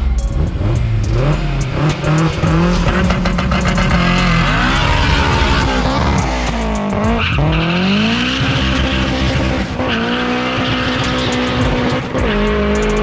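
K24-swapped Honda Civic hatchback's four-cylinder engine accelerating hard. Its pitch climbs, drops sharply about seven seconds in as with a gear change, climbs again, then holds fairly steady near the end.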